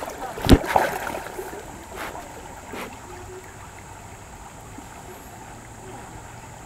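Muffled water sound picked up by a cheap camera held underwater in a creek. A sharp knock comes about half a second in, a few lighter knocks follow over the next two seconds, then a steady low wash.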